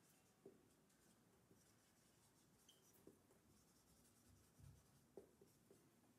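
Faint scratching of a dry-erase marker writing on a whiteboard, with a few soft ticks as the tip touches down.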